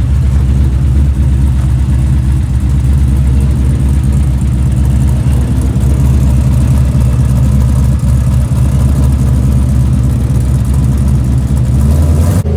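A vehicle engine running steadily with a deep, even rumble, its sound changing abruptly near the end.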